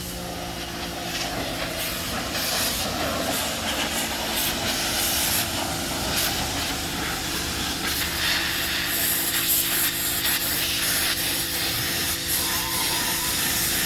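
Electric pressure washer spraying: a steady hiss of the high-pressure water jet over the pump motor's constant hum.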